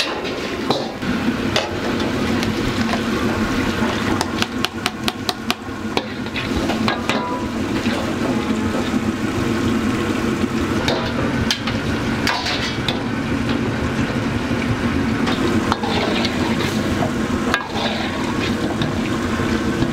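Wok cooking: a metal ladle scraping, stirring and clanking against a wok while food fries. There is a quick run of sharp knocks about four to seven seconds in, over a steady low noise that lasts throughout.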